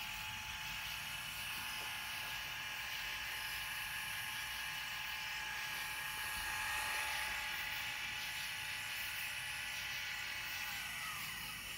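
Celestron Astro Fi telescope mount's motors slewing at full speed: a steady geared whine that winds down in pitch as the slew stops near the end.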